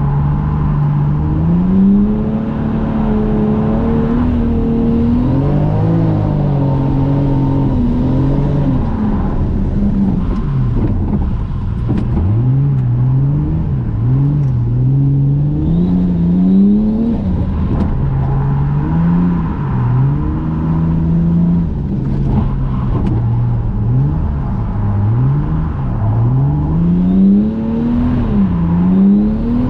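Toyota JZX100 Mark II's straight-six engine heard from inside the cabin, revving up and dropping back over and over as the throttle is worked through a run of drifts.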